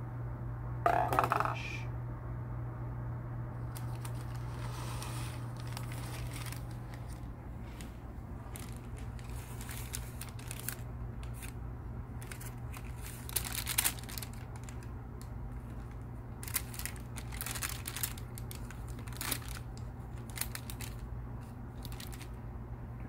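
Paper and plastic packaging of a sterile catheter kit rustling and crinkling as it is opened and unfolded, in scattered bursts, with a short hard plastic clatter about a second in as a plastic cup is set into a plastic tray. A steady low hum runs underneath.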